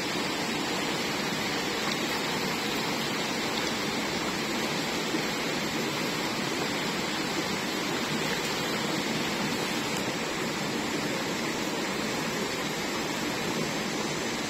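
Steady rush of flowing river water at an even level.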